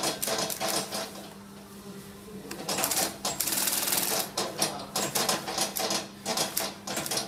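Industrial sewing machine stitching leather in runs of rapid clattering needle strokes, with a pause a little after a second in while the piece is turned, then several short bursts near the end. A steady motor hum runs underneath.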